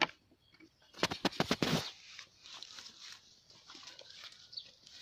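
Footsteps crunching through dry grass and stubble, with a burst of loud crackling and rustling about a second in, then fainter scattered rustles and ticks.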